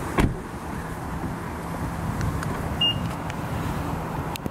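BMW car running, a steady low rumble heard from inside the cabin. There is a thump just after the start, a short high beep about halfway through, and a click near the end.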